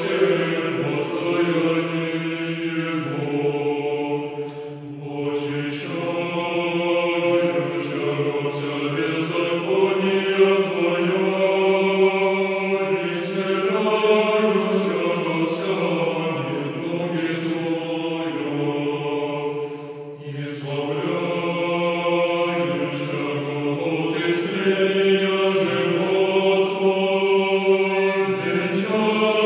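Choir chanting in slow, sustained chords in the manner of Russian Orthodox liturgical singing, the harmony shifting step by step, with short breaths between phrases about five and twenty seconds in.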